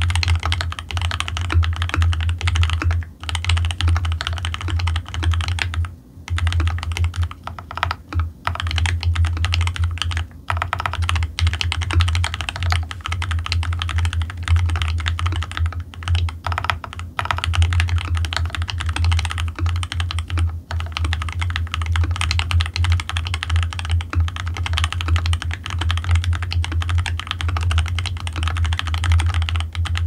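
Continuous fast typing on a custom mechanical keyboard: lubed Mashmellow R4 switches on a brass plate in a leaf-gasket, Viton O-ring mounted case with Leopold keycaps. Keystrokes clack in a dense stream, with a few brief pauses.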